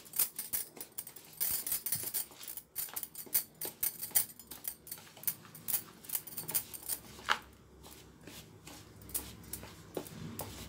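Metal spoon stirring mango pulp into powdered bread and semolina in a bowl: irregular scrapes and light clicks against the bowl.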